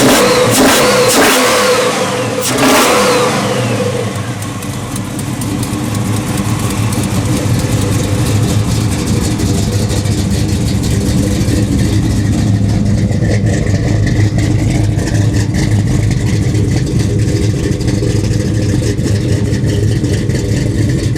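GM 502 cubic-inch big-block V8 crate engine with a hydraulic roller cam and billet intake, revved a few times in the first few seconds, then settling into steady running. The cam and intake make it not sound like a stock 502 anymore.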